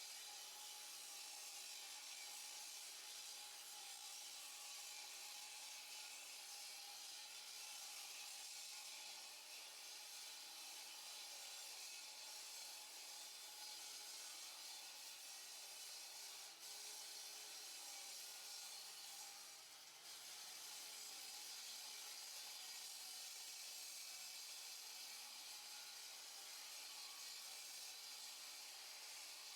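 Power saw cutting a concrete slab: a faint, steady, high hiss-like grinding with a thin whine, easing briefly about two-thirds of the way through.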